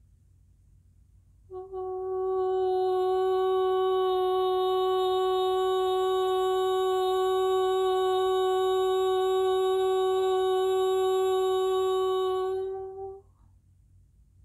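A woman's voice toning: one long sung note held at a single steady pitch, starting about a second and a half in and breaking off near the end.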